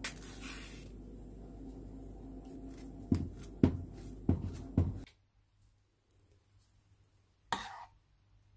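Kitchen food-preparation handling over a steady low background hum: four sharp knocks of a utensil against a bowl about half a second apart. The hum stops abruptly about five seconds in, leaving near quiet with one short clatter near the end.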